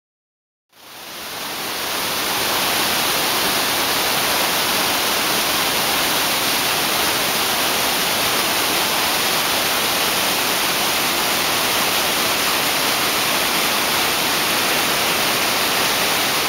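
Potomac River whitewater at high stage pouring through a rocky channel: a steady, dense rushing of water that fades in about a second in and then holds at full level.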